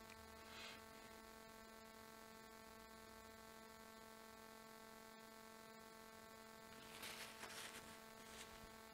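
Near silence: a faint, steady electrical hum, with a few soft rustles about seven to eight seconds in.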